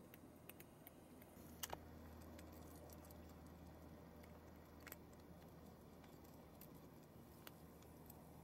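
A ginger tabby cat crunching dry kibble from a plate: faint, scattered crisp clicks, the loudest a pair about one and a half seconds in and another about five seconds in.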